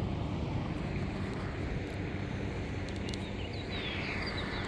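Steady low outdoor rumble, like wind and distant traffic, with small birds chirping now and then and a few faint clicks about three seconds in.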